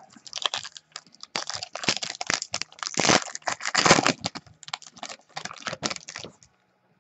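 Foil trading-card pack wrapper crinkled and torn open by hand: a dense run of crackles that stops about six seconds in.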